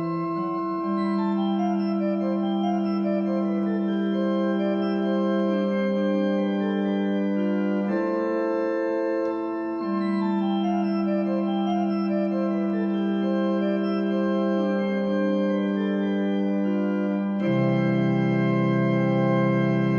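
Organ playing slow, sustained chords with long held notes. Near the end a fuller closing chord with a deep bass note comes in and is held.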